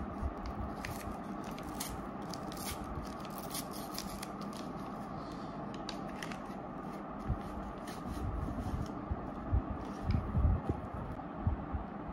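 A paper-and-foil tea sachet crinkling and tearing open by hand, with crisp crackles and rustles as the tea bag is pulled out. Several soft knocks follow in the second half.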